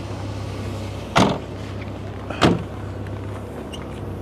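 A vehicle engine hums steadily at idle. Two sharp knocks come over it, about a second in and again about a second later.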